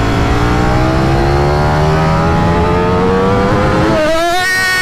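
Ducati Streetfighter V4S's V4 engine accelerating hard under full throttle, its pitch climbing steadily for about four seconds. Near the end the pitch drops sharply as the bike shifts up a gear, then starts climbing again.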